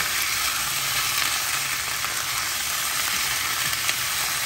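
Minced mutton sizzling steadily in hot sunflower oil with browned onions in a frying pan, moved about with a wooden spatula.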